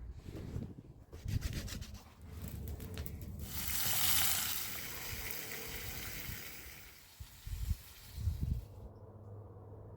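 Rubbing and rustling noise: a run of crackly scrapes, then a long hissing rub that swells and fades over about five seconds, with a few low thumps near the end.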